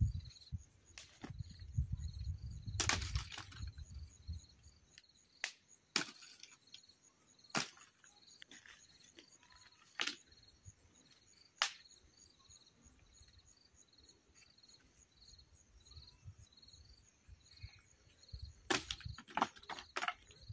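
Dry firewood cracking and knocking, with sharp single cracks every second or two and a quick cluster of them near the end. Insects chirp in a steady rhythm in the background.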